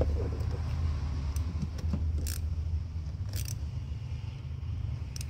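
A few sharp metallic clicks, spread out, as a hose clamp is handled and fitted on a heater hose, over a steady low hum.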